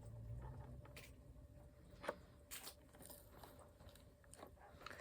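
Faint rustling and a few light clicks of blind-box packaging being handled, over near silence.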